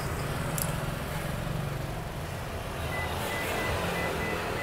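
A steady low hum, with a string of short high electronic beeps starting about three seconds in.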